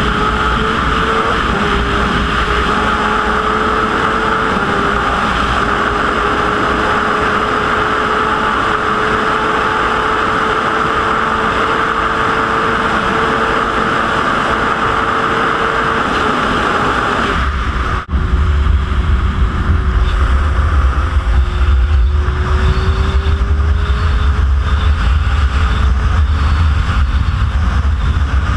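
Inline-four sport bike engine running steadily at highway speed under loud wind rush. About two-thirds of the way in the sound cuts abruptly; after that heavy low wind buffeting on the microphone dominates, with the engine note lower and slowly rising.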